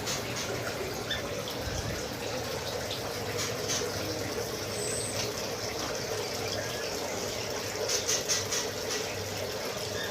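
Steady running water, like a small aviary water feature, with a few faint, brief bird chirps and some light clicks over it.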